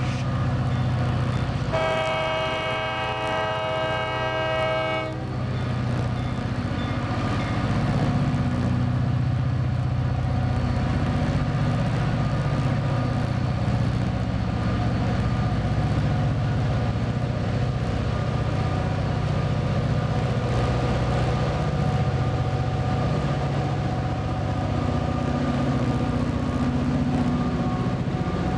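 CSX diesel locomotives passing close by: the horn sounds one long blast of about three seconds, starting about two seconds in. A steady diesel engine drone follows as the locomotives roll past, pulling a long string of ballast hopper cars.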